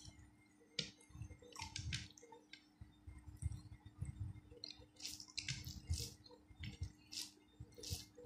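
Eating rice by hand: fingers squishing and mixing rice with fried potato and curry on a plate, with wet chewing and lip-smacking in an irregular run of short squishy clicks and smacks.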